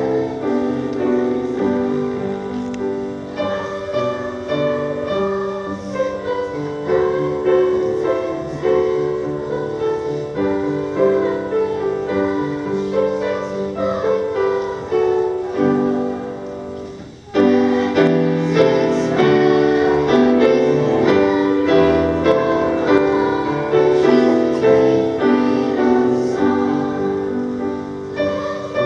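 Piano music with voices singing. About 17 seconds in it fades briefly, then comes back louder.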